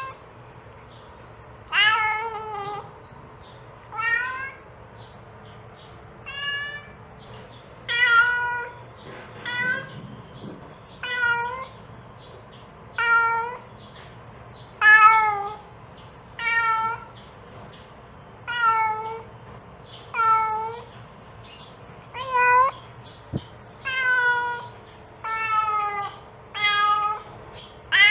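Mother domestic cat meowing over and over, calling her kittens. There is one call every second or two, and each call dips in pitch at its end.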